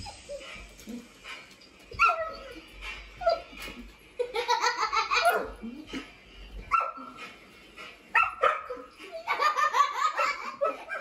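A dog barking in several separate sharp barks at a toy train circling its track, with a child laughing in two long fits, about four seconds in and again near the end.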